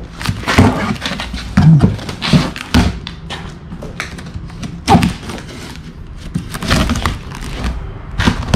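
Knife blade slicing and tearing through packing tape, plastic wrap and corrugated cardboard, in uneven scratchy strokes, with several dull thumps from the cardboard being pushed and handled.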